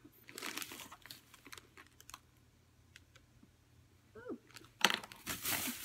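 Plastic shopping bag and food packaging rustling and crinkling as they are handled, with scattered light clicks and taps. The loudest crinkling comes near the end.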